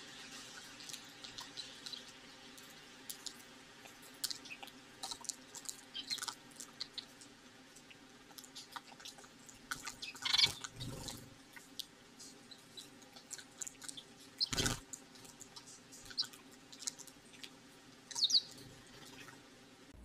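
Eurasian tree sparrows pecking seed from plastic feeder cups, with scattered light taps and ticks, rain dripping and a few brief chirps. Two louder knocks come about ten and fourteen and a half seconds in.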